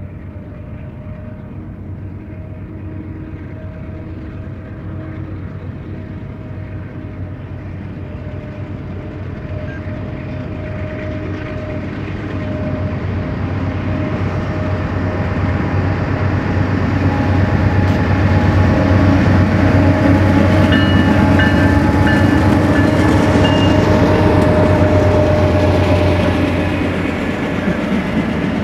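BNSF freight train's diesel locomotives approaching: a steady low engine drone with rumbling wheel and rail noise that grows louder through the first half and is loudest in the second half, easing slightly near the end.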